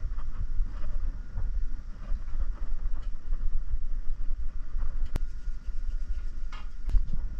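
Low rumbling microphone noise with faint scraping as a thin strip is pulled back and forth around a medium-voltage cable's plastic insulation, and a sharp click about five seconds in.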